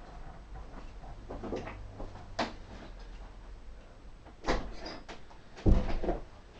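A few short knocks and clicks, then a heavier thump near the end, the loudest sound.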